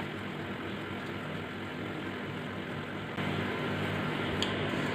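A small motor's steady hum with a hiss, getting louder about three seconds in, with a faint click near the end.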